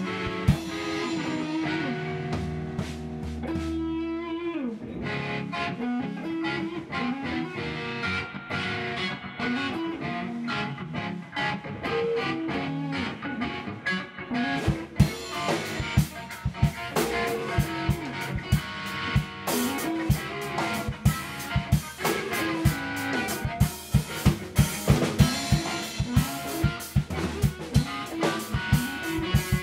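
A band of guitars and a drum kit jamming together. Held guitar notes slide down about four seconds in. The drums then keep a steady beat, with the hits growing heavier and more frequent about halfway through.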